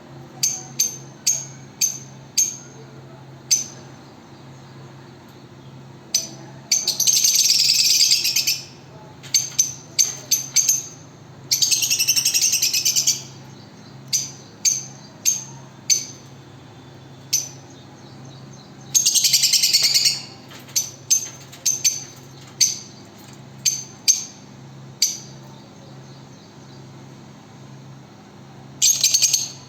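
Lovebirds chirping: a run of short, shrill single chirps, often less than a second apart, broken four times by longer bursts of rapid chattering that each last one to two seconds.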